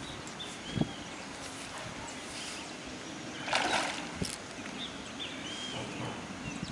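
A hooked fish splashing at the water surface about three and a half seconds in, one short splash that is the loudest sound. Birds chirp on and off in the background.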